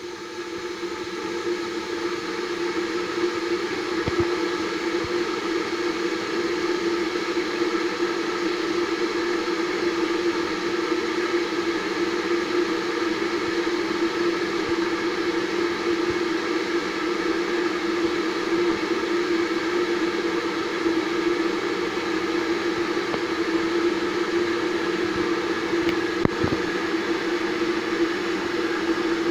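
Vitek VT-1138 electric kettle heating water: a steady rushing noise with a low hum. It swells over the first two seconds, then holds level.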